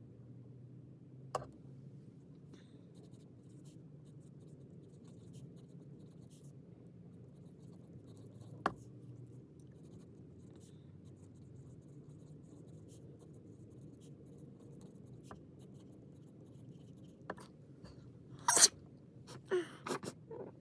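Faint pen scratching on paper, sped up to double speed, with a couple of sharp taps. Near the end comes a loud sneeze with a few shorter breaths after it.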